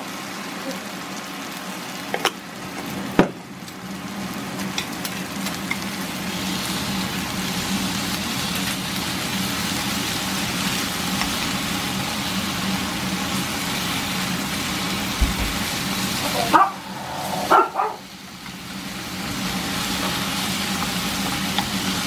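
Sauce-coated pollack skin frying in perilla oil in a nonstick pan: a steady sizzle that grows louder a few seconds in, with a few sharp clicks and knocks against the pan.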